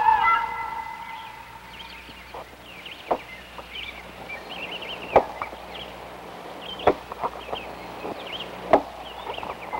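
Axe chopping into wood: four sharp strikes, the first about three seconds in, then roughly every two seconds.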